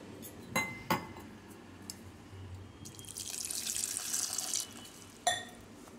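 Water poured in a thin stream into a steel pot onto dried red chillies, a tomato and garlic, running for about two seconds near the middle. There are two sharp knocks in the first second and one more near the end.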